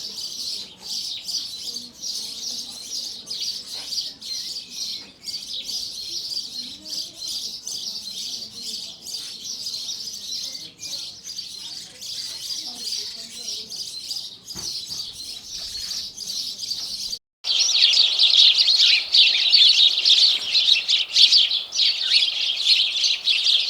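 Sparrows chirping, many overlapping chirps at once like a flock. The chirping breaks off for a split second about 17 seconds in and comes back louder.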